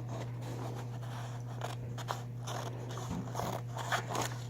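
Scissors cutting paper in short, faint snips and rustles, over a steady low hum.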